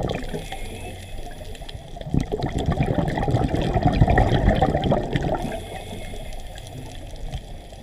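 Scuba diver's exhaled bubbles rushing and gurgling from the regulator exhaust, heard underwater; a burst starts about two seconds in and tails off over the next few seconds.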